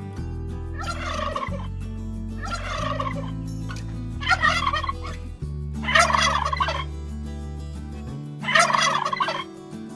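Turkey gobbling: several short, rattling gobbles, one every second or two.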